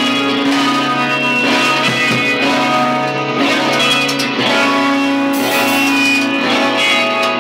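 Live band music led by an amplified electric guitar playing held, ringing notes and chords.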